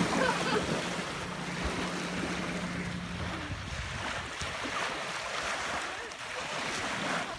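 Small lake waves lapping on a sandy shore, with wind buffeting the microphone. At the start there is splashing in the shallow water.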